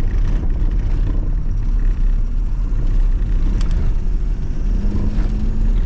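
2003 Ford F-250's 6.0 L Power Stroke turbo-diesel V8 and road noise while driving: a steady low rumble, with a faint steady tone joining in near the end.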